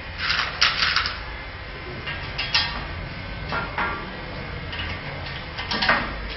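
Small steel bolts clinking in a tray as they are picked out by hand, then a steel angle section tapping against the steel frame of a handloom as it is fitted: a few short clusters of clinks and taps, the busiest about a second in and another near the end.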